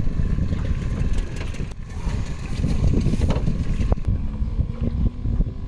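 Boat motor idling, a steady low rumble, with a light knock about four seconds in.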